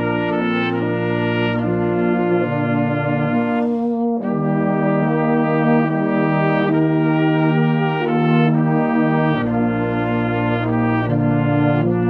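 Brass band playing slow, held chords, with a brief break about four seconds in before the next chord.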